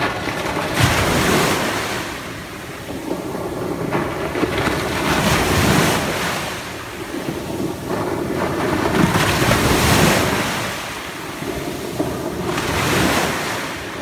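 Small ocean waves breaking and washing up a coarse sand beach. Four surges of surf each swell and fade over a few seconds.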